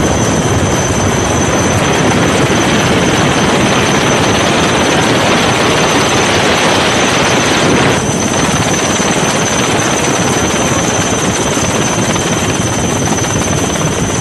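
Helicopter cabin noise: a loud, steady rush of rotor and engine with a constant high whine running through it, dipping slightly about eight seconds in.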